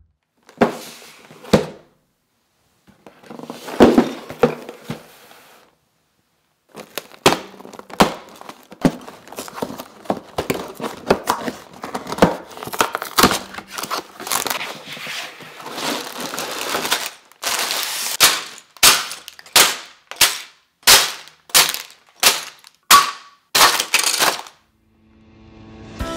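Cardboard box of a Lego set being opened and its plastic bags of bricks handled: crinkling and rattling of loose bricks in the bags, then near the end a run of sharp clacks about every half second.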